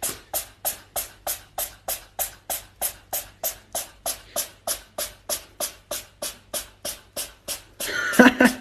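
A steady percussive beat of sharp clicks, about four a second, over a low hum, with a short pitched, voice-like cry near the end.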